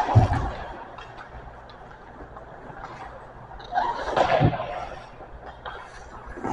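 Ice hockey skate blades scraping across the ice in two swells, each ending in a dull thud: one right at the start and one about four and a half seconds in.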